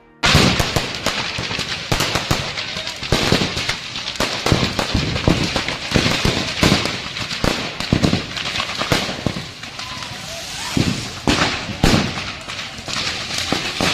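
Firecrackers exploding in a burning shop's stock: many sharp, irregular bangs and crackles, several a second at times, with people's voices underneath.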